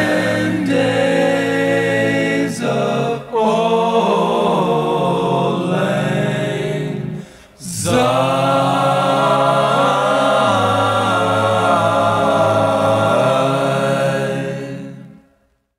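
Unaccompanied vocal music: voices singing long, held chords without instruments. The singing breaks off briefly twice, then fades out near the end.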